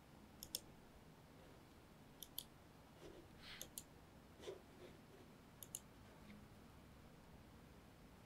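Computer mouse clicking: four short double clicks, each a quick press and release, spread over a few seconds of near-silent room tone.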